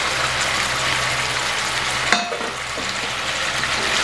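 Pieces of fried chicken sizzling in sauce in a hot pan as they are stirred, with a steady low hum underneath and a sharp clink about two seconds in.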